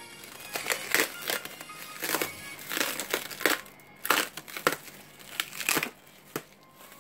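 Clear plastic stretch wrap crinkling as it is cut and pulled off a parcel, in a string of irregular crackly bursts that die down near the end.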